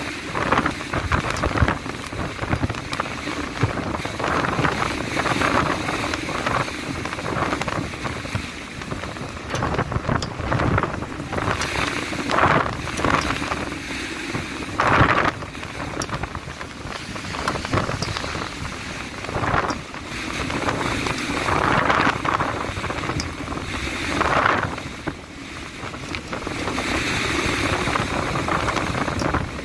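Force 8–9 gale wind buffeting the microphone in irregular gusts, over a continuous rush of rough sea.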